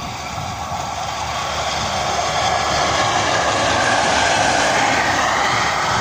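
PLK WM-15Ak diesel track motor car (draisine) running light past at speed, its engine and wheels on the rails growing louder to a peak about four seconds in, then dropping in pitch as it moves away.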